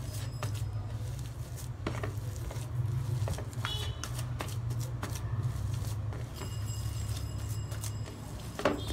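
A hand mixing and squeezing mashed potato stuffing on a plate: soft squishing with scattered light ticks of fingers against the plate, over a steady low hum.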